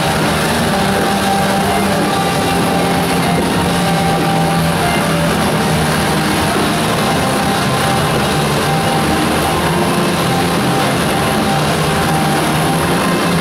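Eight motorcycle engines running together without a break as the bikes circle inside a steel-mesh globe of death, mixed with loud music.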